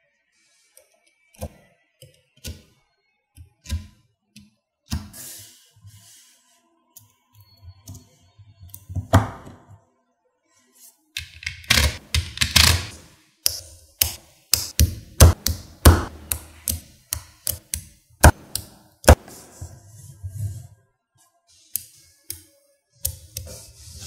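Small neodymium magnetic balls clicking as they snap onto each other and are pushed into rows by hand: scattered sharp clicks with pauses at first, growing into a busy clatter about halfway through.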